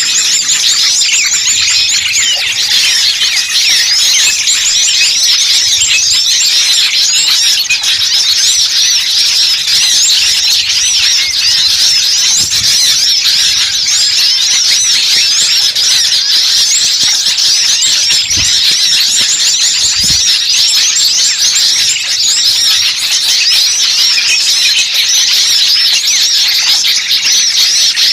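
Dense, continuous chorus of many small birds chirping and twittering at once, a frantic small-bird commotion of the kind played as a lure to draw wild birds down.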